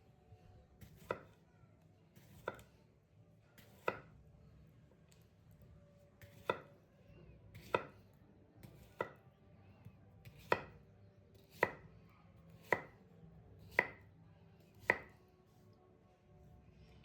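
Knife chopping food on a cutting board in slow, even strokes, about one a second. The strokes stop near the end.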